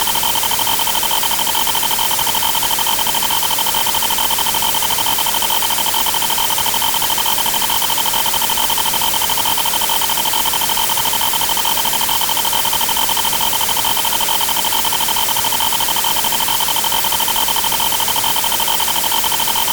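Counter sound effects repeating so fast that they merge into one continuous loud hiss, with two steady high tones held throughout.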